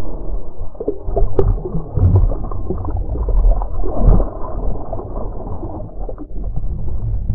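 Muffled water sloshing and bumping against an underwater camera's waterproof housing as it rides just below the surface among waves and bubbles, with a heavy low rumble and a few knocks.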